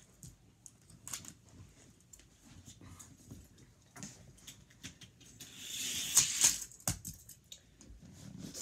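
Scattered light clicks and taps from toy cars and track pieces being handled, with a louder rustling swish about six seconds in and a couple of sharper knocks just after.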